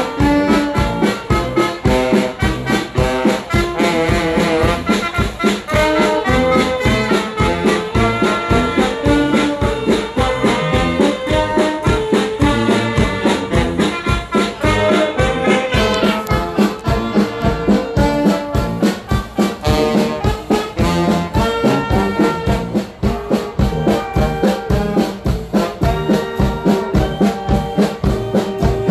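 Live brass band (trumpets, trombone, saxophones and tuba) playing an upbeat tune over a drum kit's steady beat.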